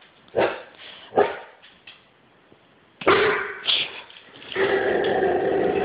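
Dog barking at a man on the television screen. Two short barks in the first second or so, a louder bark about three seconds in, then a longer, drawn-out bark held for over a second near the end.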